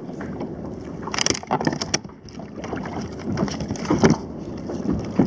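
Wind on the microphone, with scattered knocks and scrapes against the plastic hull of a sit-on-top kayak. The loudest knock, about four seconds in, comes as a hand grabs a fish lying in the hull.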